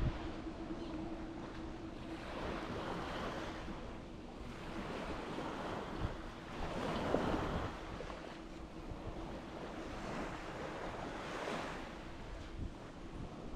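Small sea waves washing onto a beach, the surf noise swelling and fading every couple of seconds, with light wind on the microphone.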